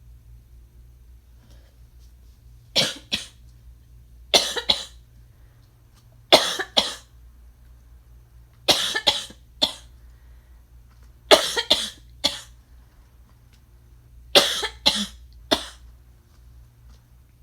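A person coughing in a fit: six bouts of two or three coughs each, a couple of seconds apart.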